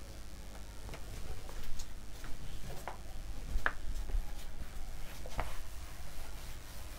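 Writing on a board: faint, irregular taps and short squeaky strokes over a low room hum, with no speech.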